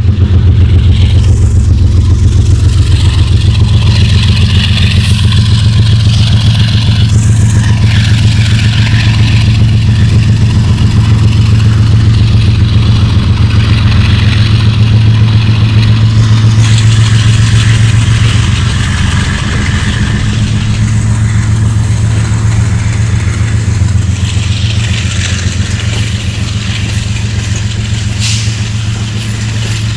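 TE33AC diesel locomotive's 12-cylinder GEVO engine running loud and steady with a low, pulsing throb; it eases off somewhat after about 18 seconds.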